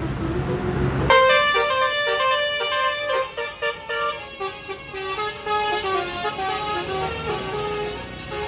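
Multi-trumpet Basuri 'telolet' bus horn playing a fast stepped melody of several notes at once. About a second in, street noise gives way abruptly to the clean, loud horn tune.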